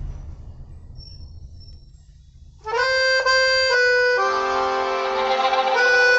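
Accordion waltz music starts about two and a half seconds in, after a faint low rumble: three short chords about half a second apart, then held chords.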